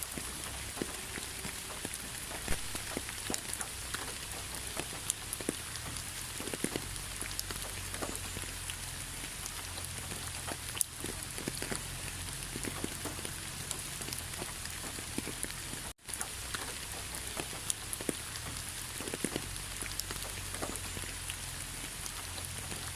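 Steady rain falling in a rainforest, an even hiss with scattered individual drops ticking close by. The sound cuts out for a split second about two-thirds of the way through.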